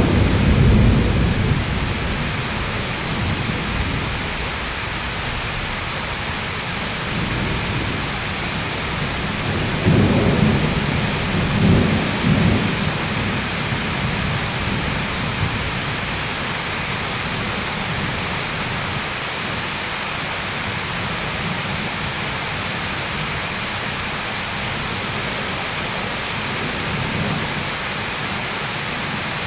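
Steady rain with low thunder rumbles, one at the very start and another rolling through about ten to thirteen seconds in.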